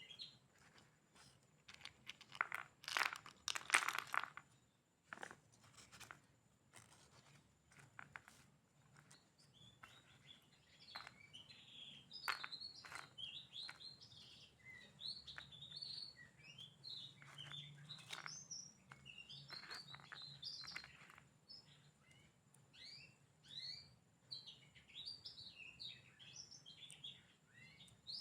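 Rustling, crinkling and small clicks from handling Lego bricks and their plastic packaging, loudest a few seconds in. Small birds chirp in quick, repeated high notes through most of it.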